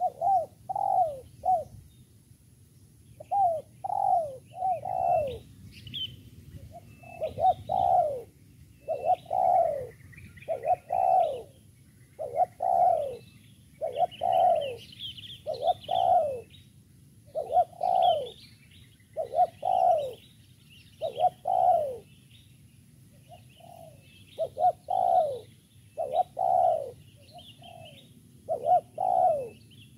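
Spotted dove (tekukur) cooing over and over: short phrases of two or three coos, each falling in pitch, repeated every second or two. Faint chirping of small birds runs above it.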